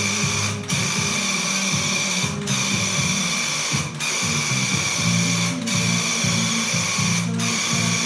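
Handheld Graco UltraMax airless paint sprayer running while spraying, its pump buzzing steadily and loudly, with a short break about every one and a half to two seconds.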